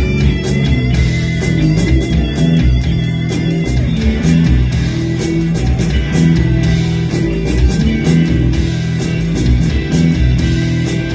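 Live rock band playing: electric guitar, bass guitar, keyboard and a drum kit, with a steady drum beat under guitar riffs.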